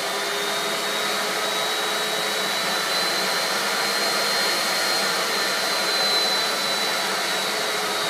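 Bare vacuum cleaner motor running at high speed: a steady high whine over the rush of its fan, its pitch creeping up slightly and easing again near the end.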